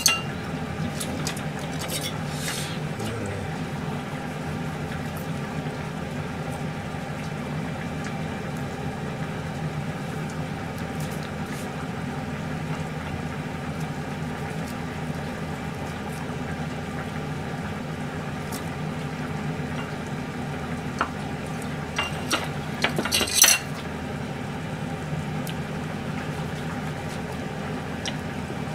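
Kitchen clatter of a knife on a cutting board and plates being handled, as sandwiches are cut: scattered clinks and knocks, with a short, louder burst of clatter about 23 seconds in. A steady low hum sits under it.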